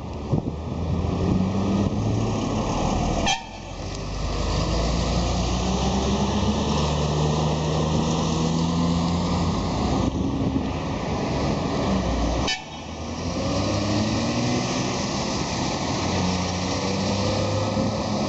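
Volkswagen Constellation truck's diesel engine rumbling, its pitch rising and falling with the revs. Twice, about three seconds in and again around twelve seconds, the sound cuts off sharply with a click and then builds back up.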